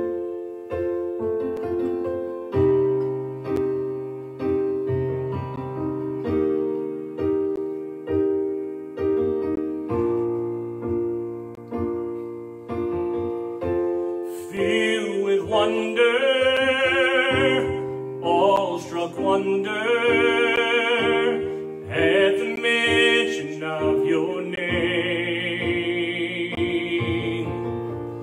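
Piano playing a slow worship-song passage, with held bass notes under a chordal melody. About halfway through, a man's voice comes in singing over it with a strong vibrato.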